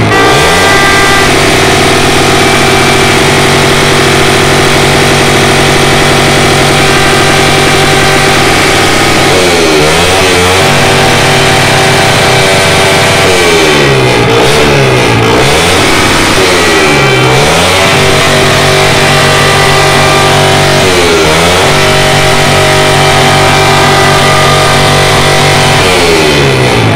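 Plastic party horns blown without a break, a loud buzzing drone that wavers now and then, over the steady hiss of fountain fireworks spraying sparks.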